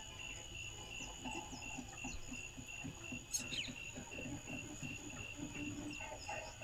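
Insects, cricket-like, chirping in an even, steady pulse over a continuous high whine, with a short falling chirp about three and a half seconds in and low pulsing animal calls that come and go.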